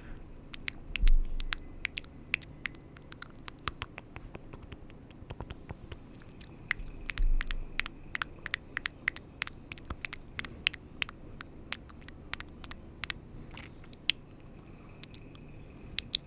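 Close-miked ASMR trigger sounds: rapid, irregular sharp clicks and taps, several a second, with two soft low thumps, about a second in and about seven seconds in.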